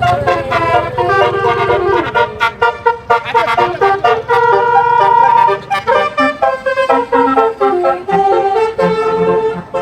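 A bus's multi-tone basuri (telolet) horn playing a melody of held notes stepping up and down in pitch, over a low engine rumble in the first couple of seconds.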